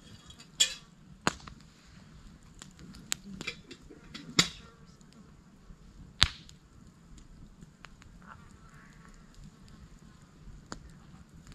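Wood campfire crackling, with about six sharp pops a second or more apart, the loudest near the start and about four and six seconds in.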